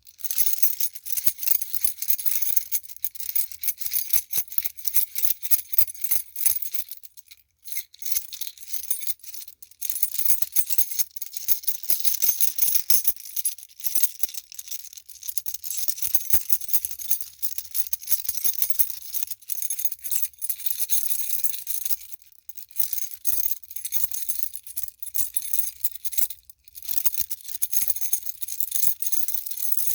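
Bunch of keys on a key chain jangling as it is shaken: a continuous run of bright metallic clinks, broken by a few short pauses.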